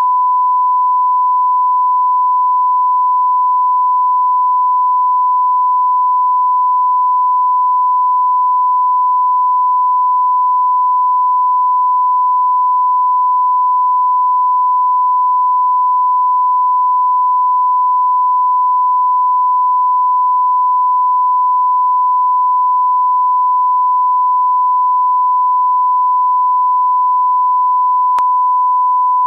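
Long electronic test beep: one pure tone held at a single steady pitch without a break.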